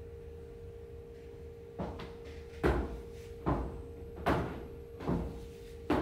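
Footsteps of hard shoes on a tiled floor, starting about two seconds in at a little over one step a second, each with a short echo. A steady faint hum runs underneath.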